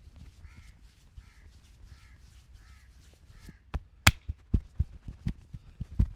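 A crow caws faintly five times, about one call every three-quarters of a second. Then the massage strikes resume: hands slapping and tapping the body in a quick rhythm of about three or four blows a second, with one sharp, louder slap among them about four seconds in.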